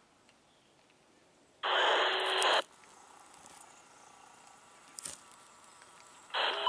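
Railroad radio scanner squelch: a burst of static lasting about a second, starting about a second and a half in, and another as a transmission opens near the end.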